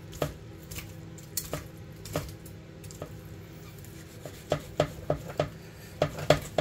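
A long kitchen knife sawing the meat off the rib bones of a roast fore rib of beef, making sharp clicks and taps as the blade works. The clicks come more often and louder in the last two seconds.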